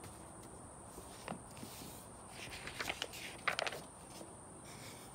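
Quiet background hiss with a few faint, short clicks and rustles, a small cluster about three and a half seconds in.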